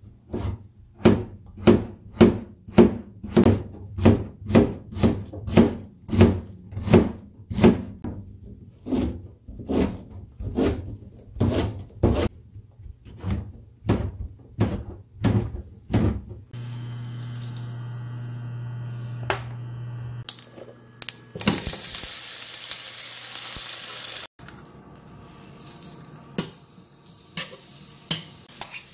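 Kitchen knife chopping through potato and then oyster mushrooms on a plastic cutting board, sharp strokes about two a second for roughly the first sixteen seconds. Then a steady low hum, a few seconds of loud sizzling as minced garlic fries in oil in a frying pan, and a spoon clinking as it is stirred.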